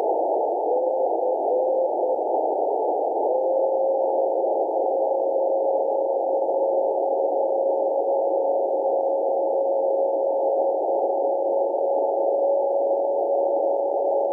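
10 GHz amateur radio beacon DM0TUD, heard as a CW tone in receiver hiss through an RTL-SDR fed by a crystal-controlled satellite LNB. The tone is keyed in short dashes over the first two seconds, then holds as one steady, unbroken carrier from about three seconds in. It is clean, with no noticeable phase noise.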